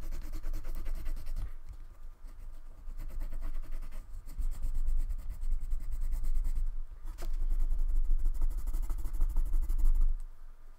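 Crayon colouring on paper in quick back-and-forth scribbling strokes, with a deep rumble underneath. The strokes pause briefly a few times, and a single sharp click comes a little after seven seconds.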